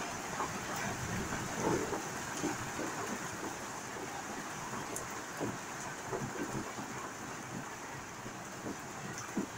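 Steady rain falling on a patio, a constant hiss with scattered drops and drips ticking sharply on nearby surfaces.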